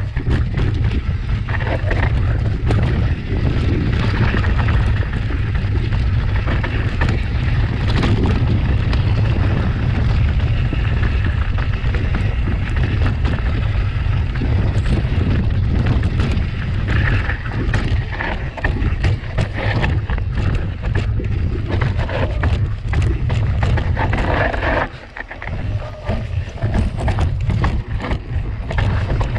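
Wind buffeting an action camera's microphone on a fast mountain-bike descent of a rough natural trail, a heavy constant rumble under a dense clatter of ticks and knocks from tyres, chain and frame over the ground. The rumble drops away briefly about 25 seconds in, then resumes.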